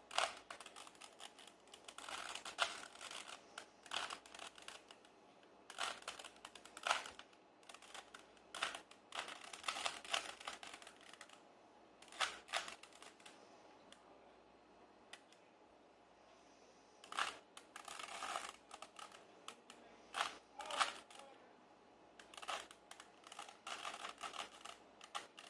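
Plastic Rubik's cube layers being twisted, clicking and clacking in quick bursts with a pause of a few seconds midway, as the cross on the first face is built.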